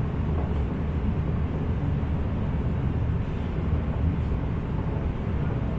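Steady low rumble heard inside an Inekon Trio Type 121 streetcar.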